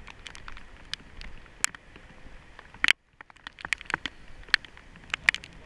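Raindrops striking the camera housing in irregular sharp ticks, with one louder tick about halfway through.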